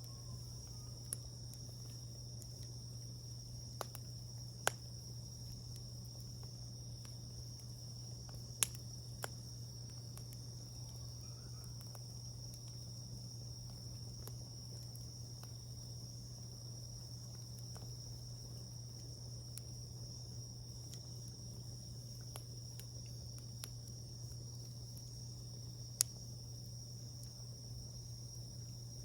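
Wood campfire giving a few sharp pops and cracks, the loudest about five seconds in, near nine seconds and near the end, over a steady high chirring of insects.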